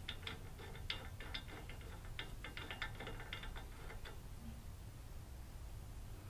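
Light, irregular metallic clicking and ticking as the hydraulic jack's pump cylinder is unscrewed by hand from the jack body, its threads turning out. The clicking stops about four seconds in as the pump comes free.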